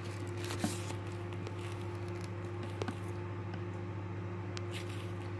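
Steady low electrical hum, with a few faint clicks and rustles.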